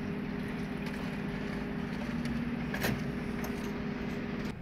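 Steady low mechanical hum with a faint click about three seconds in.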